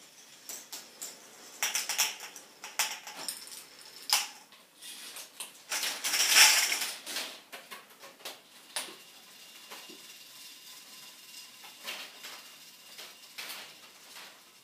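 K'Nex fruit machine mechanism running: hard plastic parts and balls clicking and clattering, with a louder rattling stretch about six seconds in.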